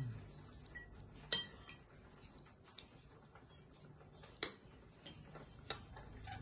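Metal spoon and fork clinking lightly against a ceramic bowl while stirring instant noodles: a few faint, irregularly spaced clinks.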